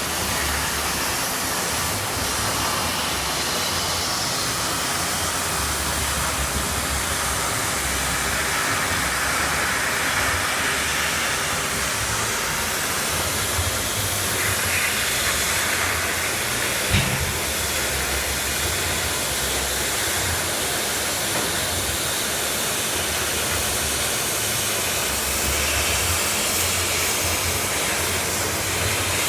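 Oxy-fuel gas cutting torch on a cutting machine cutting steel plate, giving a steady hiss of gas and cutting oxygen, with a single short knock about halfway through.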